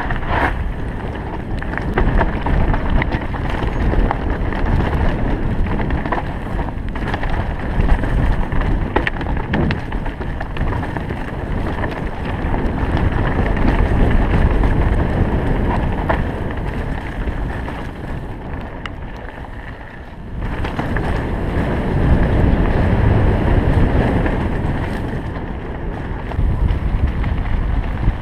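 Wind rushing over the camera's microphone at riding speed, with a mountain bike's tyres rumbling over a gravel trail and the bike clattering and ticking over rough ground. The noise dips briefly about twenty seconds in, then picks up again.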